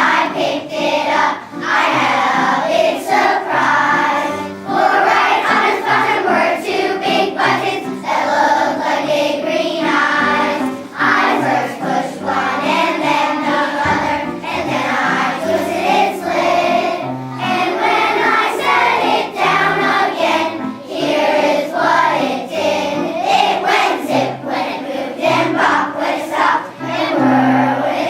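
A children's choir singing together with musical accompaniment, continuous throughout.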